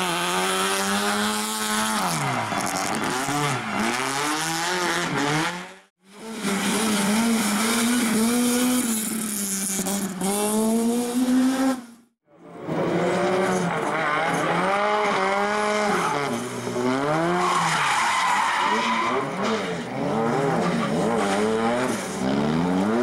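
Rally cars' engines revving hard through tight corners, the pitch climbing and falling with throttle and gear changes, with tyre squeal as the cars slide. The sound cuts out abruptly twice, about 6 and 12 seconds in.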